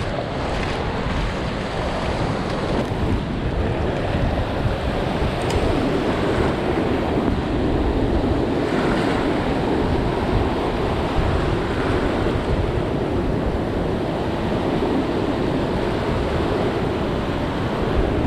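Rough sea: continuous waves surging and breaking, with wind buffeting the microphone.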